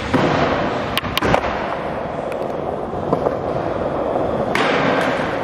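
Skateboard wheels rolling on concrete with sharp clacks of boards hitting the floor, three close together about a second in and one more near the end, echoing in a large skatepark hall.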